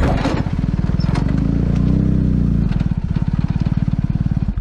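Large adventure motorcycle's engine running with a rapid, even pulsing, the revs rising and falling briefly around the middle. It cuts off suddenly near the end.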